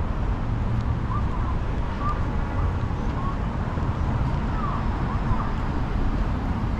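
City street ambience: a steady low traffic rumble with a few faint, short chirp-like glides mixed in.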